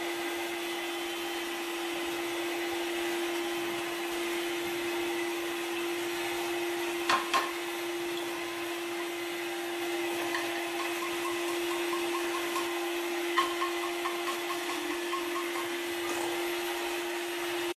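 Handheld electric mixer running steadily with its beaters in a bowl of creamy mixture, a constant motor hum that switches off right at the end. A couple of sharp knocks and runs of light ticks sound over it partway through.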